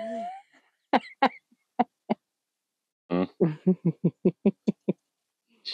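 Short, pitched bursts of a person's voice without words: four separate ones in the first half, then a quick, even run of about nine near the end, in the rhythm of laughter.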